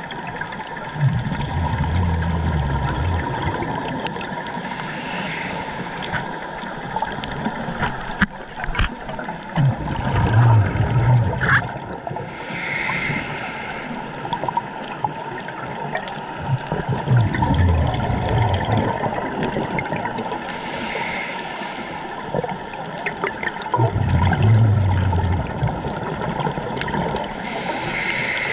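Scuba diver breathing through a regulator underwater: exhaled bubbles gurgle out in four bursts about seven seconds apart, with a short hiss of inhalation between them.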